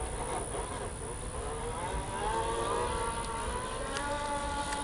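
Electric hub motors of a two-wheel self-balancing scooter whining while it is ridden. The pitch glides up and down as the scooter speeds up and slows, over a low rumble.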